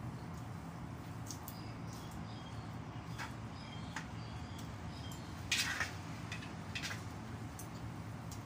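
Eating sounds: a mouthful of vegetable salad being chewed with wet smacks, and short clicks and scrapes of the utensil against the metal bowl, the loudest a little past halfway. A low steady hum runs underneath.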